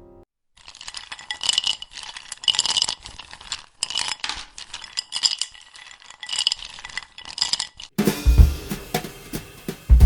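Small metal or glass objects clinking and rattling, shaken in uneven bursts for about eight seconds. Near the end a different sound takes over, with two deep thumps.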